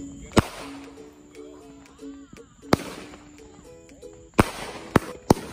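Fireworks going off: five sharp bangs at uneven intervals, one about half a second in, one near three seconds, then three close together in the last second and a half. Background music with held notes plays underneath.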